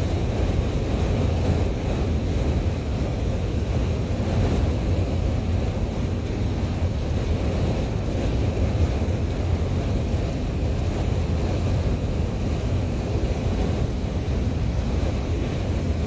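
Steady low rumble of strong sandstorm wind mixed with the noise of a vehicle driving along the road.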